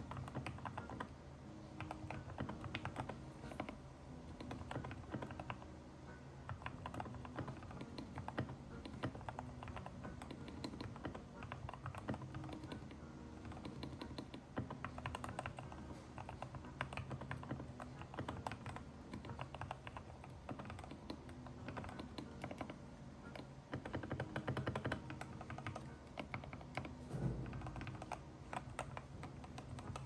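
Continuous typing on a Keychron K6 mechanical keyboard with Gateron Milky Yellow linear switches lubed with Krytox 205G0, set on a desk mat: a dense, steady run of keystrokes.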